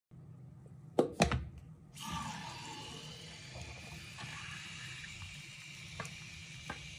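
Two sharp knocks about a second in as an aerosol can is set against a sink plughole, then a steady hiss as the can sprays foam into the drain, with a couple of faint ticks near the end.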